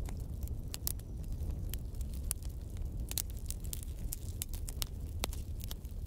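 Wood fire crackling: irregular sharp pops and snaps of burning sticks, several a second, over a steady low rumble.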